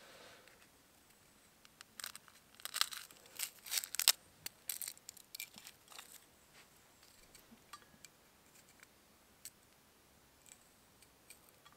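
Garlic being peeled and sliced by hand with a knife: dry papery crackles and small cutting clicks, bunched in the first half and then only a few faint ticks.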